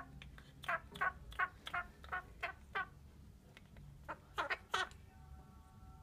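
Quaker parrot singing a quick run of short, falling notes, about three a second, then breaking off and adding a few more near the end.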